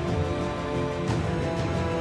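Background theme music under the news programme: held sustained notes over a steady low beat with light percussion.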